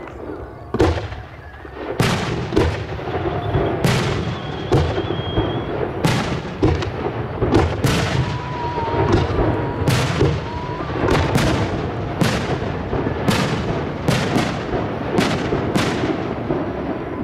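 Aerial fireworks shells bursting one after another, a sharp bang about every second, over a continuous low rumble.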